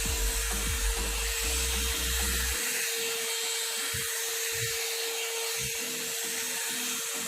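One-step hair dryer and styler (hot-air brush) running steadily: a constant motor whine over rushing air, with a low rumble that stops about two and a half seconds in.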